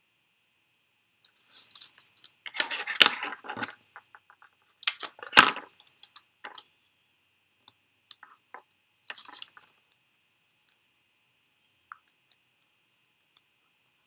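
Paper and plastic crinkling and crackling as small craft supplies are handled. Two louder bursts come about two and a half and five seconds in, followed by scattered light clicks and taps.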